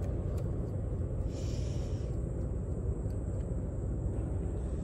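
Steady low rumble of harbour ambience at the quayside, with a brief soft hiss about a second and a half in.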